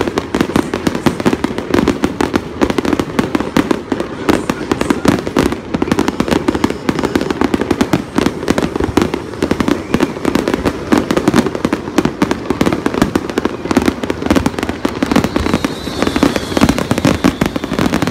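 Aerial fireworks shells bursting in a dense, continuous barrage of bangs and crackles, many a second with no let-up.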